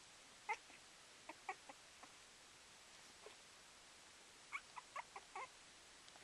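Puppy making short, high squeaky whimpers and yips, singly and in small groups, with a quick run of five or so near the end.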